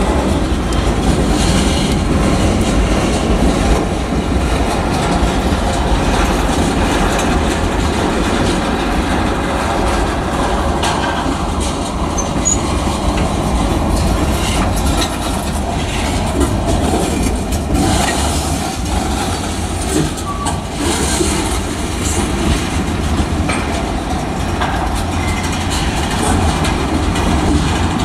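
Freight train tank cars and covered hopper cars rolling past: a loud, steady rumble of steel wheels on rail, with occasional clicks of wheels over the rail joints.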